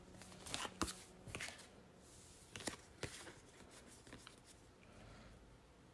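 Tarot cards being shuffled and handled: soft card snaps and clicks in the first three seconds, thinning out to faint rustling.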